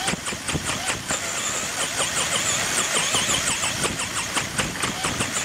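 Tamiya Super Hornet RC buggy driving, heard from a camera riding on the car: its electric motor whines up and down in pitch with the throttle over a constant fast rattle of the chassis and tyres on the ground.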